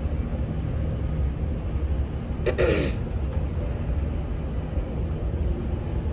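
Steady low rumble of the sailing ship and wind, with one short cough or throat-clear from a person about two and a half seconds in.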